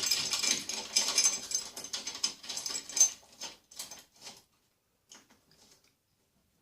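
Small metal hardware clicking and scraping as a bolt, lock washer, flat washer and nut are fitted to a fence mounting bracket, a quick run of irregular clicks that stops about four and a half seconds in, leaving a few faint ticks.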